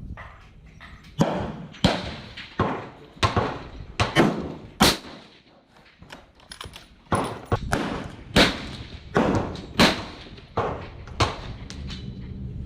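Gunfire on a shooting range: about a dozen sharp shots at irregular intervals, each with a short echoing tail, with a lull about five to seven seconds in.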